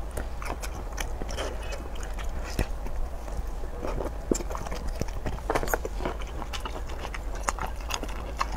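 Close-up eating sounds: biting and chewing shellfish, with many irregular small wet clicks and crackles.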